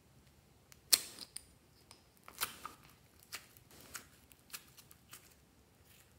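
A plastic egg-shaped slime capsule snapping open with a sharp click about a second in. It is followed by about half a dozen short crackling pops as the soft slime is squeezed out and pressed down into a tray of beaded, glittery slime.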